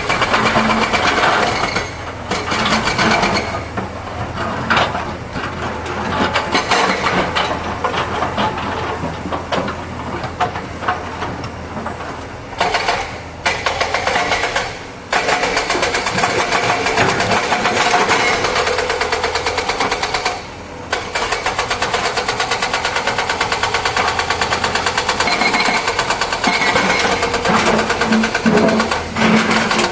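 Excavator diesel engine running hard, with a dense, fast mechanical rattle. The loudness dips briefly a few times.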